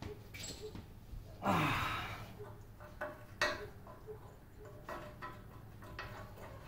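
A man's sigh about a second and a half in, falling in pitch, followed by a few short, sharp knocks and clicks, over a faint low hum.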